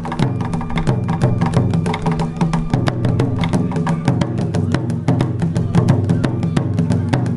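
Festival kagura drumming on a taiko: a rapid, steady beat of sharp strikes with low ringing tones underneath.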